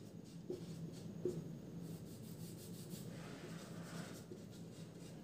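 Marker writing on a whiteboard: faint scratchy strokes and a few light taps of the tip, over a low steady hum.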